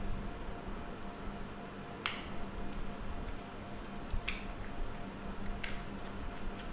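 Small screwdriver working the terminal screw of a plastic bulb holder and the holder being handled: short clicks and scrapes, about three of them sharper, spread through the stretch.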